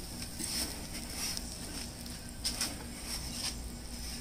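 Gas burner of a propane pizza oven running with a steady low rumble, with a few faint, brief scrapes as the metal pizza peel carries the finished pizza out of the oven.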